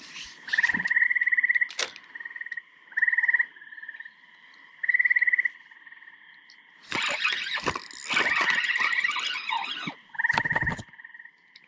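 Frogs calling at the pond: short trills repeating every second or two over a faint steady chorus. Between them come a few knocks, and about seven seconds in a few seconds of louder rustling from handling the spinning rod while a hooked fish is reeled in.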